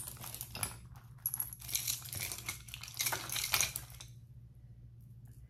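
Metal costume jewelry and beaded chains clinking and rattling as the pieces are handled, a run of small sharp clicks that dies away about four seconds in.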